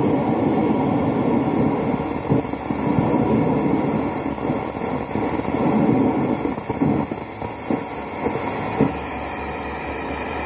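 Car audio amplifier played through a speaker, giving irregular scratchy, rumbling noise with sharp crackles as a damaged high-pass filter (HPF) potentiometer is turned with a screwdriver. The crackling is the sign of the worn pot track. It settles to a steadier, quieter noise about eight seconds in.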